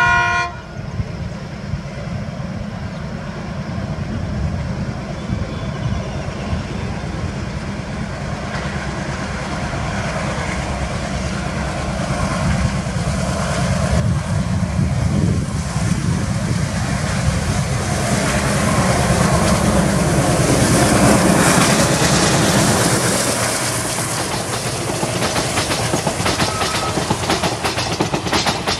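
ALCO WDM-3A diesel-electric locomotive: a horn blast cuts off just after the start, then its engine runs hard as it approaches and passes, loudest around twenty seconds in. Near the end the passenger coaches clatter past with a rapid clickety-clack of wheels over rail joints.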